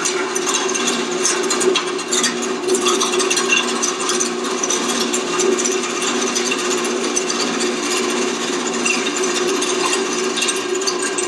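Motor-driven, top-down, gravity-fed continuous cannabis grinder running steadily with a constant hum and dense rattling clicks as it shreds bud fed into it.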